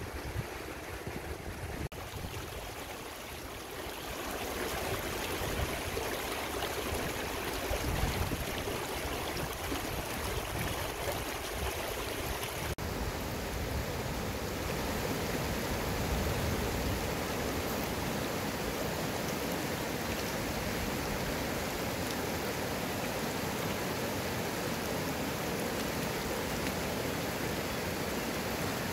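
Small mountain river rushing steadily over rocks, a continuous water noise.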